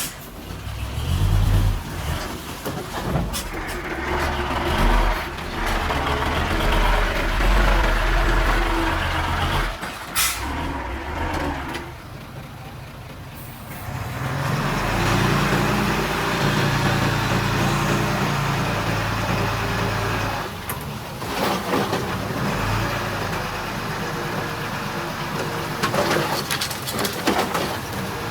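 Diesel engines of a bulldozer and dump trucks working, the engine sound rising and falling, with a short hiss about ten seconds in. The engines ease off for a couple of seconds about twelve seconds in, then pick up again.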